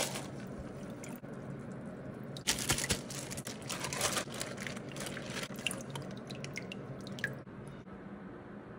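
Kitchen tap running into a stainless steel sink as whole fish are rinsed under it, the water splashing and spattering unevenly; the flow dies down near the end.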